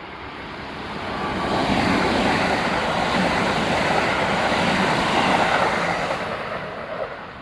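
Four-car Kintetsu limited express electric train passing by. The noise builds over the first second or so, stays loud for about four seconds, then dies away near the end.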